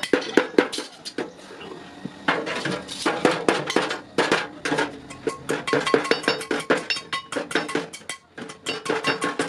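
Rapid metallic clinking and knocking of utensils against a cooking pot, mixed with background music.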